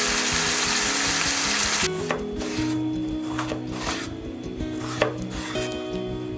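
Ground beef with onion and green pepper sizzling in a frying pan for about two seconds. Then a chef's knife slices a tomato on a wooden cutting board, with a few knocks of the blade on the board and one sharp knock about five seconds in. Background music with steady tones plays throughout.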